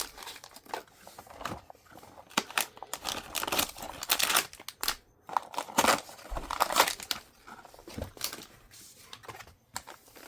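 Thin plastic packaging and small blind bags crinkling and rustling in irregular bursts as they are handled and pulled out of a toy package, with some tearing.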